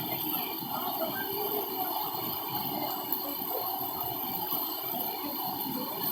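Steady rushing noise of flowing floodwater.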